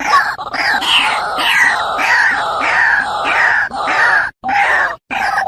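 White-breasted waterhen calling, a loud harsh note repeated about three times a second. This is the full-voiced call played back to draw waterhens in.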